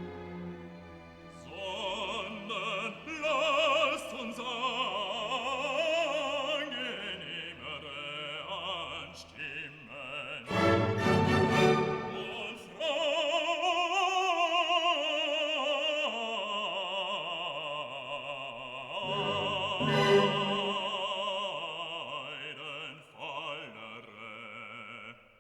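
Background music: an operatic voice singing with wide vibrato over classical orchestral accompaniment.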